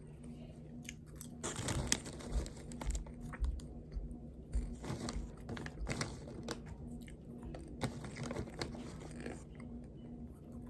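Mouth chewing and crunching popcorn, irregular crunches close to the microphone, over a steady low hum.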